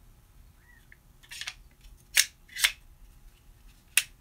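Dispensing gun for a 4-to-1 two-part acrylic adhesive cartridge clicking as its plunger is fitted and worked by hand: a short rattle about a second and a half in, then single sharp clicks twice near the middle and once near the end.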